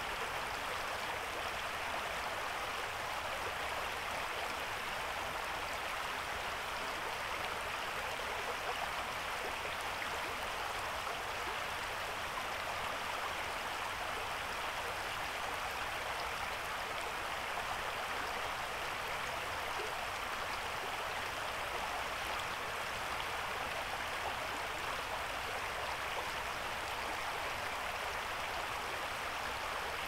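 Shallow creek water running over rocks, a steady, even babble with no change.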